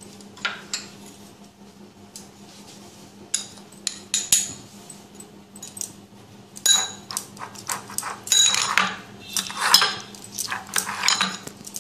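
Metal spoon clinking and scraping against a glass bowl as raw prawns are mixed with salt and turmeric. A few light taps come in the first seconds, then a quick run of clinks and scrapes from about seven seconds in.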